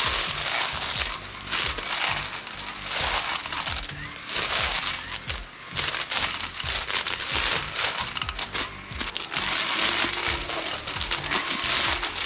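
Dense crackling and snapping of brush and branches being cut and broken, with background music.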